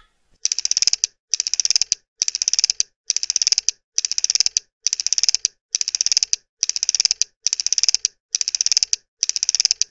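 Rhythmic chugging for a toy train climbing a ramp track: a burst of rapid clicking about every 0.85 s, each lasting about half a second, with silence between.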